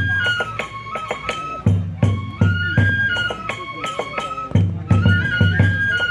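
Oni kenbai dance music: a bamboo flute playing a short repeating melody over clusters of heavy taiko drum beats and sharp clashes of small hand cymbals, the phrase coming round about every three and a half seconds.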